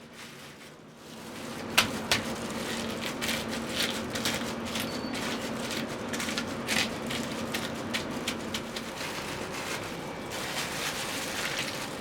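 Food frying in hot oil in a pan: a steady sizzling hiss with irregular crackles and pops, starting about a second and a half in.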